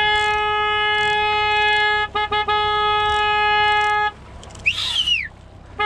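Boat horn sounding in blasts: a long blast of about two seconds, three quick toots, then another long blast that stops about four seconds in. Near the end comes a brief high whistle that rises and falls.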